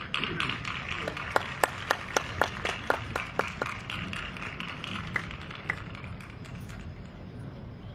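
Hand claps close by, about four a second for a couple of seconds, then two single claps, over the steady background noise of a large stadium crowd.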